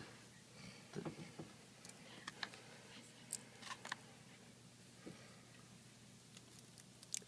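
Faint, scattered clicks and taps of small tablet parts and tools being handled during an iPad 3 screen repair, with a sharper click near the end.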